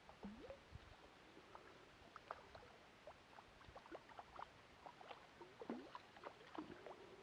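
A hooked grayling splashing and thrashing at the surface of still water while it is played in on a fly line: a string of small, irregular splashes and plops.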